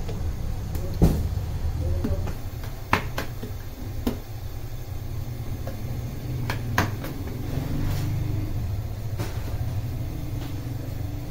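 Irregular sharp slaps and taps of dough being handled and a metal dough scraper knocking on a floured wooden bench, over a steady low machine hum.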